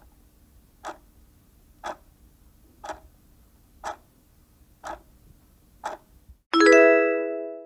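Countdown-timer sound effect: a clock ticking once a second, seven ticks, then a loud ringing chime about six and a half seconds in that slowly fades, marking that the answer time is up.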